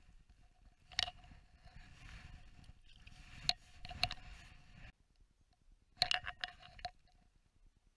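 Handling noise: jacket fabric rustling and small knocks and clicks of gear being handled on the ice, with a few sharp clicks and a brief cluster of clicks about six seconds in.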